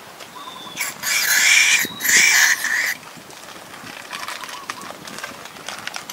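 Butane gas hissing from the canister of a portable mini gas stove as the canister is pushed in and pulled out of its fitting: two loud hissing bursts of about a second each, back to back, about a second in. Faint chirps are heard in the background.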